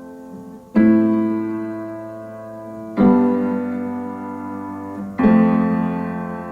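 Background piano music: slow chords struck three times, about two seconds apart, each left to ring and fade.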